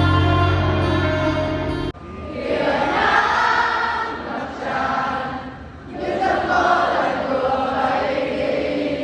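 Background music: held notes that cut off sharply about two seconds in, followed by a choir-like wash of voices that swells twice.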